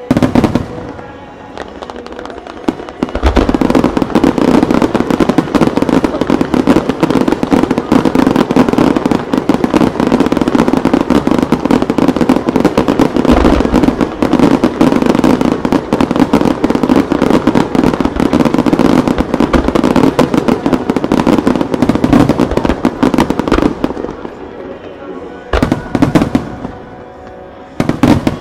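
Japanese starmine fireworks barrage: shells launching and bursting in rapid, overlapping succession for about twenty seconds, a dense continuous crackle of reports over the music the show is set to. A few separate bursts follow near the end.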